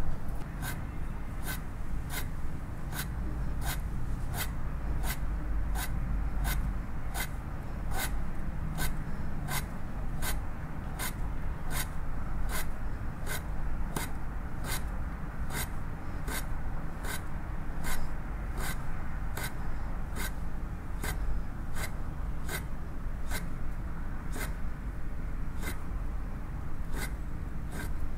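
Knife thinly slicing an avocado on a wooden cutting board, each stroke ending in a light tap of the blade on the board, about two a second at a steady rhythm.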